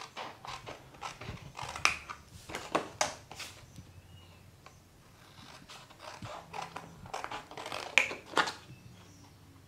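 Small scissors snipping the corners out of a sheet of cardstock: a string of short, sharp, irregular snips with the card rustling in the hands between them. There is a quieter stretch in the middle.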